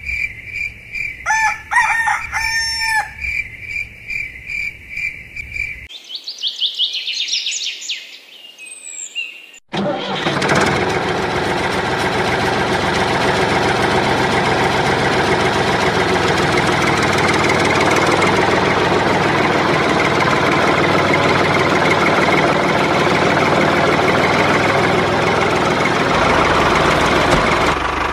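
A rooster crows over a steady pulsing beep, followed by a rising high sweep. From about ten seconds in, a steady engine sound runs without a break.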